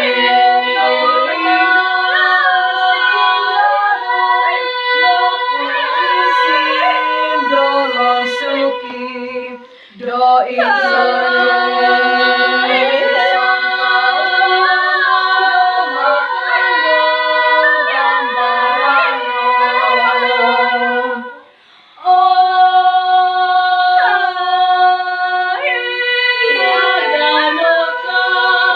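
Unaccompanied group of voices singing a traditional Dusun gonding chant, with long held notes that slide slowly between pitches. The singing breaks off briefly twice between phrases.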